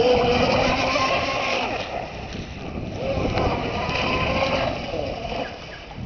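36 mm brushless electric motor of an RC boat whining as the boat runs on the water, its level rising and falling, with wind noise on the microphone.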